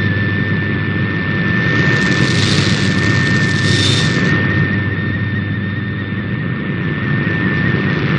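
Shortwave Radiogram's MFSK digital-mode signal received over shortwave: a single steady whistling tone over heavy static and local interference noise. A brief surge of higher hiss comes about two to four seconds in.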